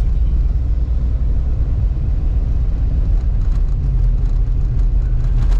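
Car-interior road noise while driving on an unsealed dirt road: a loud, steady low rumble of tyres and engine, with faint clicks and rattles over the second half.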